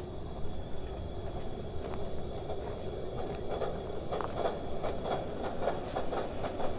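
Coal-fired ride-on live steam locomotive running along the track: a steady running noise, joined about halfway through by a quick, regular beat of about three strokes a second.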